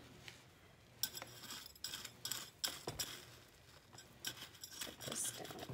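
Small hand trowel scooping and pushing gritty potting soil, mixed with perlite and pumice, into a glazed ceramic pot. Irregular scrapes and light clinks of the trowel against the ceramic start about a second in.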